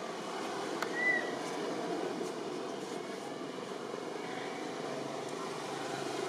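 A steady, engine-like low rumble, with one short high chirp about a second in.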